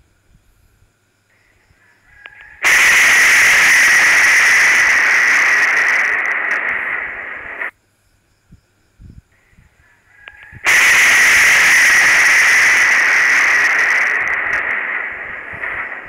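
Thunderclap from a nearby lightning strike, picked up by a security camera's microphone: a sudden, very loud, harsh crash about three seconds in that holds for several seconds and then cuts off abruptly. The same crash comes again about ten seconds in and slowly fades.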